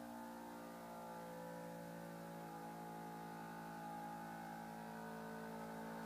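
Vacuum pump of a Grandispensa vacuum-sealer prototype running steadily, drawing the air out of a jar-vacuum canister through a hose: a steady hum of several tones that grows slightly louder.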